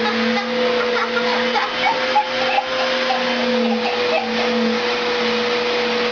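Household vacuum cleaner running steadily, its motor holding one steady pitch over a constant rush of air, as it sucks a girl's hair up the hose to gather it into a ponytail.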